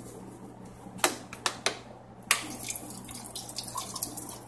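Kitchen faucet running into a stainless steel sink as a block of ramen noodles is rinsed by hand under the stream. A few sharp knocks come about a second in and again just after two seconds, followed by small splashes and ticks.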